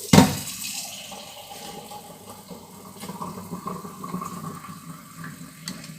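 A sharp clatter right at the start, then water running from a kitchen tap at a lower level.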